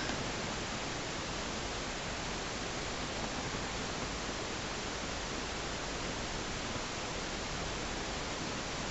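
Steady, even hiss with no distinct events: the background noise of a camera recording in a quiet dark room.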